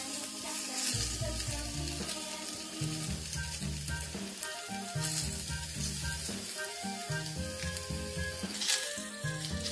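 Thin pork slices sizzling as they fry in a hot clay pot (donabe) while they are laid in and moved around with chopsticks. Background music plays underneath.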